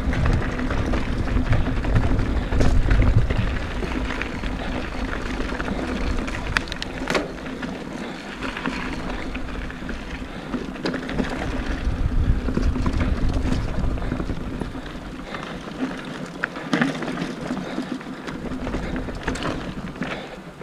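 Mountain bike ridden over a rocky, rooty trail: wind rumbling on the camera microphone, with scattered clicks and knocks of the bike rattling over rocks. The rumble is heaviest in the first half.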